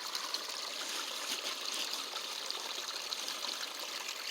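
Small woodland stream running in a steady rush, with water draining faster through a hole a boot has broken in its bank.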